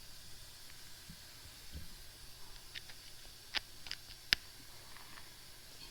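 A few faint, irregular metallic clicks and ticks, the sharpest two a little past halfway, as a broken bolt is worked slowly out of a cast tractor bolster.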